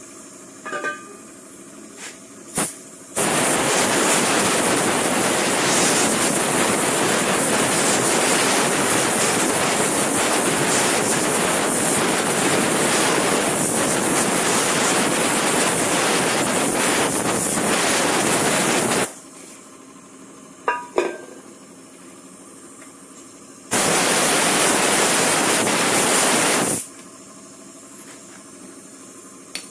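A pressurised jet hissing in two long bursts: one of about sixteen seconds, then a shorter one of about three seconds near the end. Each starts and stops abruptly. A few light clinks sound in the quiet between them.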